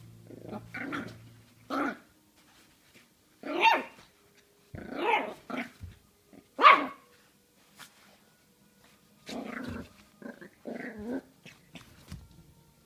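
Jack Russell Terrier puppy growling and yapping in short bursts, the loudest, sharpest barks a little under four and about seven seconds in.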